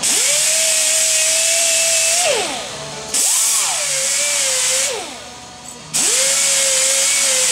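High-speed air-powered cut-off tool cutting body sheet metal in three runs, each spinning up with a rising whine, holding a steady high whine over a loud air hiss, then winding down with a falling pitch.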